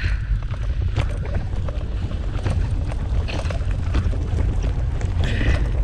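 Wheeled dog-mushing rig rolling over a rough dirt trail behind a running husky team: a steady low rumble with frequent small rattles and knocks from bumps, and wind on the microphone.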